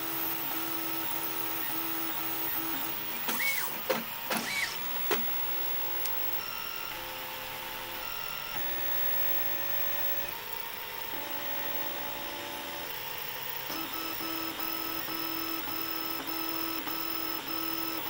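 Stepper motors of a home-built RepRap 3D printer with dual X carriages driving the print heads through a print: a steady whine of several tones that change pitch every second or two, over a hiss from the cooling fans. About three to five seconds in, a few fast moves give louder whines that sweep up and down.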